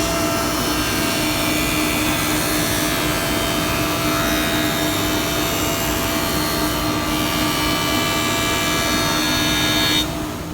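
Wadkin BTS 630 planer with a spiral carbide-insert cutterhead running, a steady hiss with a held hum and whine, dropping away near the end.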